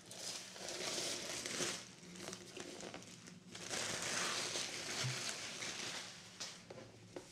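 Plastic shrink-wrap crinkling as it is peeled and pulled off a large hardcover book, in two bouts.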